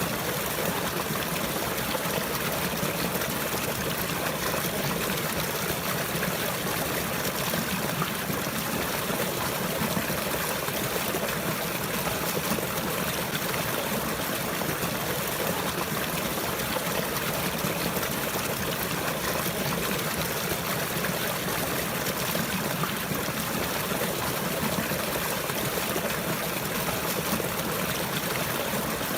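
Running water flowing and trickling steadily, like a stream, with no breaks or changes.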